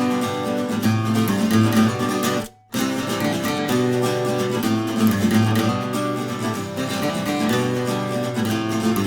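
Intro music of strummed acoustic guitar, cutting out completely for a moment about two and a half seconds in before carrying on.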